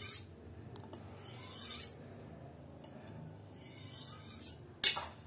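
Steel kitchen knife drawn along a Maestro Masat Mercury Steel sharpening rod: a few slow, hissing scraping strokes of the edge on the abrasive rod, then a sharp clink of blade against rod near the end. The rod is fairly abrasive.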